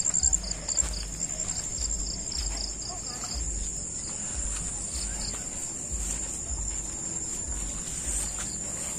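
Insects chirring steadily at a high pitch, with a second, pulsing chirp over it for the first half. Under them are low, regular thuds in step with walking on the trail.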